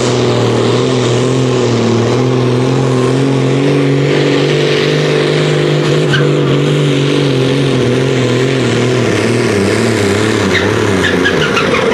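Diesel engine of a sport-class pulling tractor running flat out while dragging a weighted pulling sled. The engine note is steady at first, then wavers up and down in the second half as the sled's load builds, and sags near the end as the tractor bogs down.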